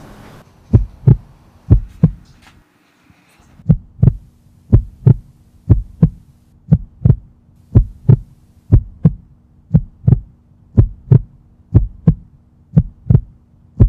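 Heartbeat sound effect: a double thump about once a second. It breaks off briefly after the first two beats, then comes back over a steady low hum.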